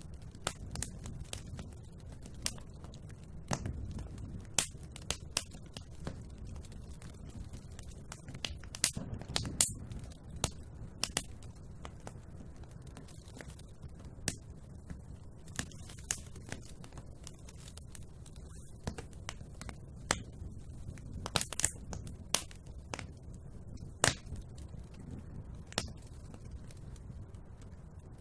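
Wood fire burning in a fireplace: irregular sharp crackles and pops over a steady low rumble of the flames, with a few louder snaps.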